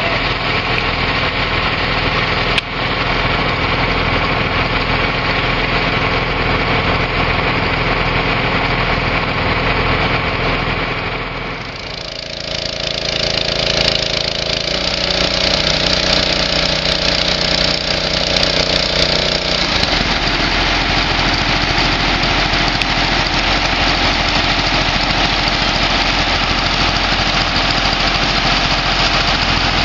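Engine machinery running steadily, with a short knock about two and a half seconds in; the sound dips and changes character about 12 seconds in, then shifts again around 20 seconds.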